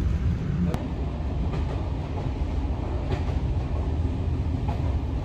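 Steady low rumble of a moving regional passenger train, with a sharp click just under a second in and faint clicks every second and a half or so from the wheels on the track.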